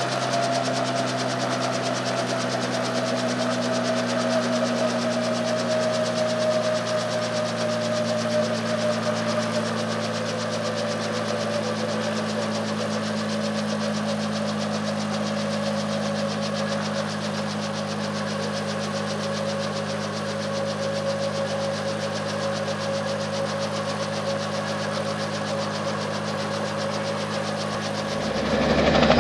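A 1955 Hiller piston helicopter running on the ground with its main rotor turning: a steady engine drone with a whine that slowly falls in pitch. Near the end a louder helicopter sound fades in.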